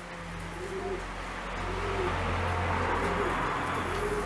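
Domestic pigeon cooing: short low coos about once a second, over a low rumbling hiss that grows louder about one and a half seconds in.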